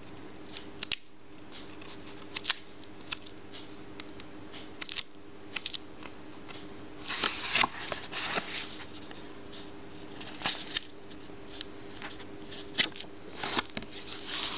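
Pages of a paperback colouring book being turned by hand: paper rustling and flicking with scattered sharp ticks, and a longer rustle about seven seconds in and again near the end. A faint steady hum runs underneath.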